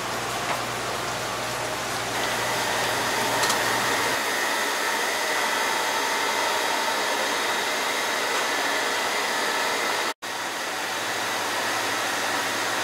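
Steady rushing noise of blowing air, with a brief dropout about ten seconds in.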